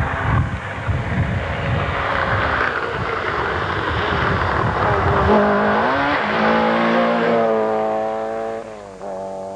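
Rally car passing close at full speed on a dirt stage, engine and tyres on the loose surface loud for the first five seconds. As it pulls away the engine note comes through, rising hard and dropping twice with upshifts.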